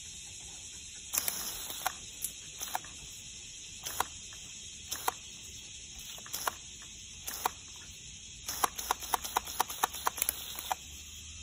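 Garden hose spraying water with a steady hiss, and irregular sharp taps of water hitting the ground, sparse at first and coming thick and fast for the last few seconds.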